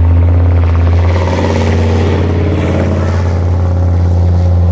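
Leopard 1 tracked armoured vehicle's diesel engine running as it drives past through mud, loudest about two seconds in and then fading as it moves away.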